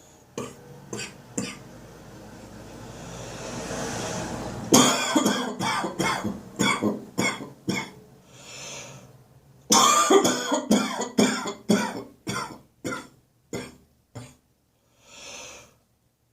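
A person's congested chest cough. A few short coughs and a long rising breath are followed by a fit of rapid coughs about five seconds in, a breath, then a second fit of coughs and another breath near the end.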